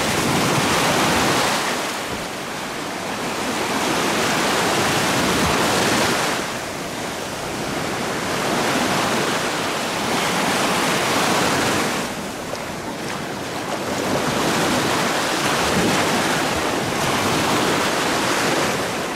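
Gulf of Mexico surf breaking and washing up the beach, the rush of water swelling and easing with each wave roughly every five seconds.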